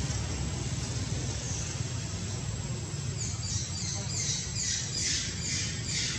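A quick run of high-pitched falling chirps, about three a second, starting about halfway through, over a steady low rumble.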